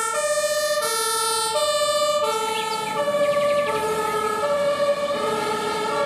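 Two-tone fire engine siren (German Martinshorn) of a MAN turntable ladder truck, switching back and forth between a high and a low pitch about every three-quarters of a second. From about three seconds in a second two-tone sequence, out of step with the first, overlaps it.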